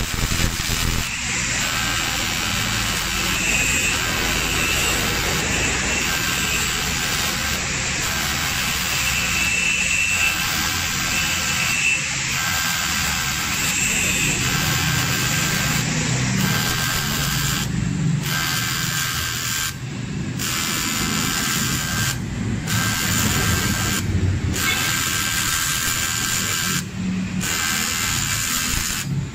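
Welding arc buzzing steadily on the aluminium engine casing, with the arc breaking off briefly several times in the second half.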